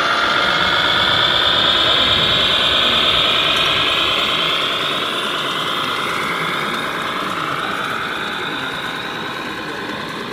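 Radio-controlled model MAN tractor unit with a tipper semi-trailer driving slowly, its drive giving a steady high whine. Several tones in the whine drift slowly lower, and it fades gradually toward the end.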